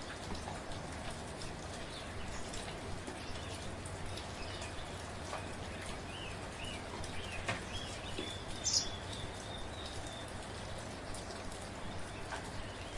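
Steady soft rain with individual drops ticking close by. Partway through, a bird gives a few short chirps.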